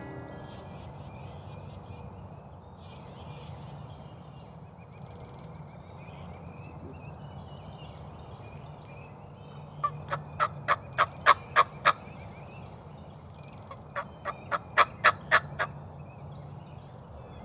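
Turkey yelping: two runs of seven or eight loud, evenly spaced notes, about three to four a second, one in the middle and one near the end. Small birds chirp faintly throughout.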